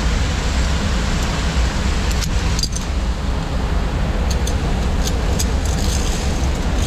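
Steady, loud rushing noise with a heavy low rumble, broken by several short metallic clinks of via ferrata carabiners.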